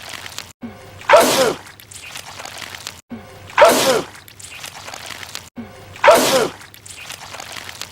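A man sneezing, the same sneeze repeated three times about two and a half seconds apart. Each is a sudden loud burst whose pitch falls.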